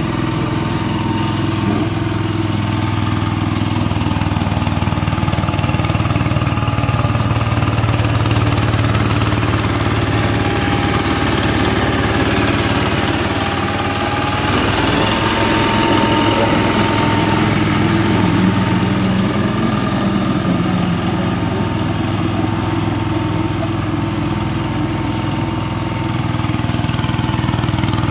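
Sakai HV60ST walk-behind double-drum roller with its engine running steadily as it compacts a dirt road, with a thin high whine that shifts slightly in pitch about halfway through.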